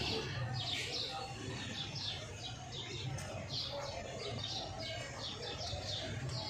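Many small birds chirping busily and without pause, over a low steady hum.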